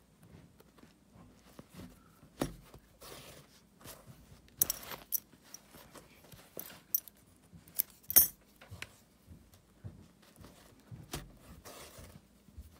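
Handling noises: scattered clicks and rustles with brief light metallic jingles. The sharpest come about five seconds in and again about eight seconds in.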